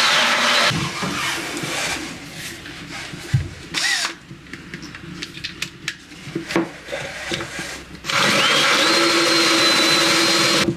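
Handheld electric power tool cutting plywood: it runs at full speed and stops about a second in, a few knocks and scrapes follow, and it starts again about eight seconds in, its high whine climbing to a steady pitch until it cuts off near the end. The sound is terrible to the user, who thinks the tool may be running rough because it is cheap.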